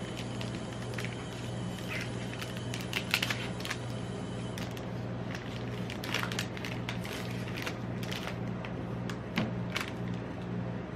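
Chocolate bar packaging being opened: the cardboard sleeve is worked open, then the wrapper is torn and crinkled in quick bursts of crackling. Near the end there is one knock as the bar is set down on the steel pan. A steady low hum from the ice-roll machine's refrigeration unit runs underneath.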